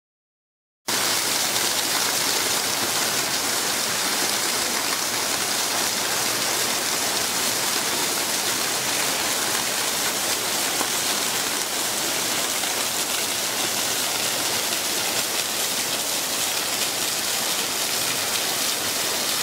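Tall water jets of a Villa d'Este garden fountain spraying and splashing down in a steady rushing hiss. It starts about a second in and cuts off abruptly at the end.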